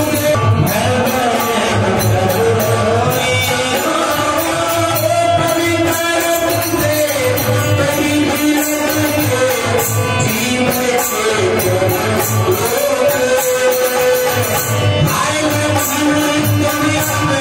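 Devotional Hindu kirtan singing to the goddess, a melody sung over a steady drum beat.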